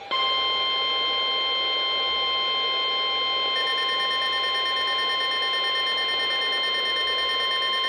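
NOAA Weather Radio 1050 Hz warning alarm tone: a loud, steady, unbroken tone sounding from weather radios ahead of a new severe thunderstorm warning message. About three and a half seconds in, a second, higher tone joins it.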